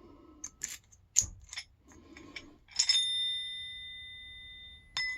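Metal keys and a padlock handled: a few light clicks and taps, then a metal-on-metal clink about three seconds in that rings on with a clear, bell-like tone, fading over about two seconds.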